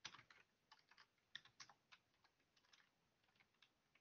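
Faint computer keyboard typing: irregular runs of quick key clicks.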